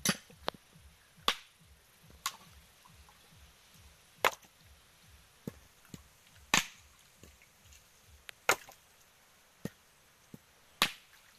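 Machete blade striking husked coconuts' hard shells to crack them open for copra: about eight sharp, dry whacks at irregular intervals of one to two seconds.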